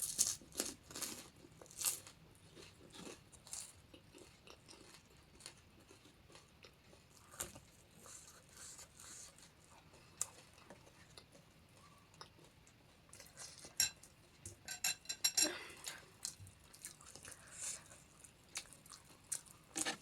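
Close-up crunching and chewing of panipuri: crisp puri shells with chips bitten and chewed, in scattered sharp crunches with a denser run of them about two-thirds of the way through.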